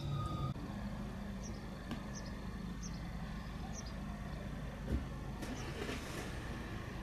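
Outdoor background noise: a steady low rumble with a few short high chirps over it and one brief thump about five seconds in.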